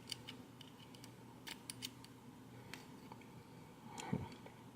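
Faint small metallic clicks and scrapes as a small tool works at the retaining clip on a padlock's lock cylinder, the clip spinning in its groove instead of coming off. A soft thump about four seconds in.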